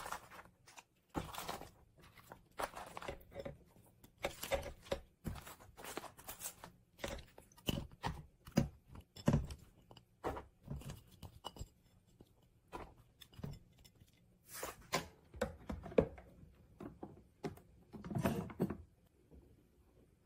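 Irregular knocks, thuds and rustles of a whole green onion stalk and onion halves being laid into the metal inner pot of an electric pressure cooker, with a longer, louder clatter near the end.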